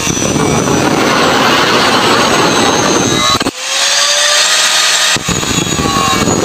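Angle grinder with a cut-off disc cutting through a rusty steel rod, a loud harsh grinding. About three and a half seconds in, the disc is lifted off and spins free with a thin whine for under two seconds, then bites into the rod again.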